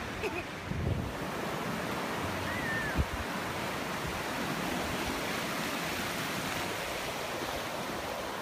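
Ocean surf breaking at the shoreline, a steady rush of waves and foam washing up the beach. A short thump comes about three seconds in.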